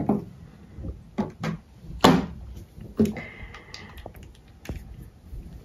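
Several light knocks and taps from a plastic tray and tools being handled and set down on a tabletop, the loudest about two seconds in.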